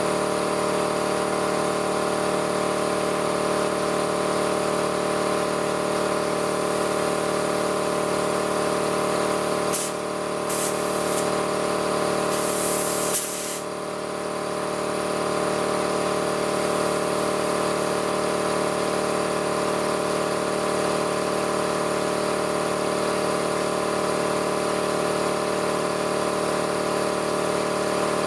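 Air compressor running steadily as a truck tire is filled through a handheld inflator chuck on the valve stem. Short hisses of air come about ten seconds in, then a longer hiss a couple of seconds later.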